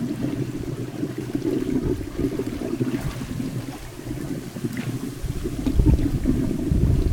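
Swimming-pool water splashing and lapping as a swimmer moves through it, with a heavier low rumble near the end.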